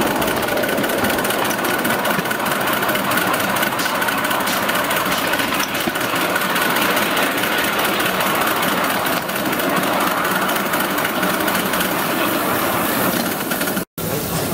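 5-inch gauge 0-6-2 live steam locomotive (a Metre Maid version of the Sweet Pea) running along the track, heard from on board: a steady, dense mix of exhaust and wheels on the rails. The sound drops out for a moment near the end.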